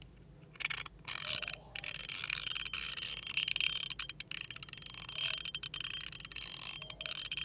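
Metilis haptic thorn coin being spun: its small metal thorn clicks rapidly over the ring's toothed edge in a fast ratcheting tick, starting about half a second in with short breaks near one and one-and-a-half seconds.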